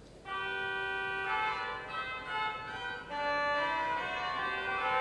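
The 18th-century hautbois (oboe) reed stop of the Notre-Dame de Paris grand organ playing a short melody of held notes. It starts a moment in and moves through several pitches.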